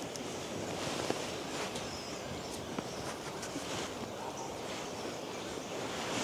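Wind blowing over the microphone outdoors: a steady rushing noise with a few faint clicks.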